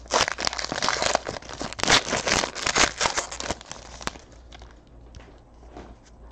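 Foil wrapper of a Panini Chronicles baseball card pack crinkling and tearing as it is ripped open by hand, a dense crackle for about three and a half seconds. Then comes one sharp click and a few faint rustles of handling.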